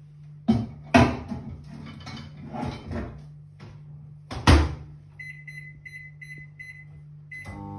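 Microwave oven being loaded and set: a plate clatters in and the door shuts with a loud knock about four and a half seconds in. This is followed by a quick run of short, high keypad beeps as the cooking time is keyed in, and one more beep near the end.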